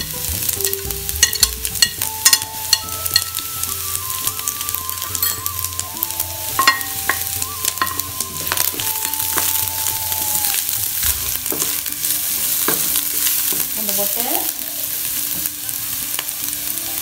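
Minced garlic sizzling in hot oil in a wok with shallots and ginger, a steady frying hiss. Several sharp clicks of a utensil come in the first few seconds as the garlic goes in.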